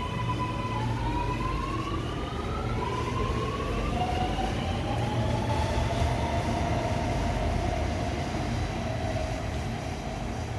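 Sydney Metro Alstom Metropolis train pulling away, its traction motors whining in several tones that rise in pitch over the first few seconds. A lower whine then holds fairly level over a steady low rumble from the train.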